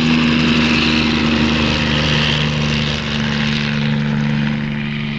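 Helicopter in flight, a steady engine drone with rotor noise, easing slightly near the end.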